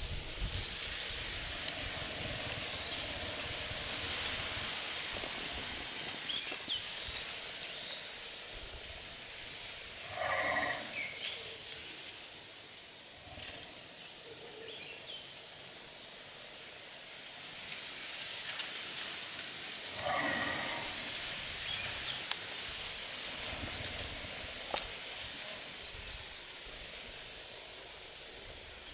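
A sleeping Asian elephant snoring: two slow snoring breaths about ten seconds apart, each lasting about a second, over a steady high-pitched hiss.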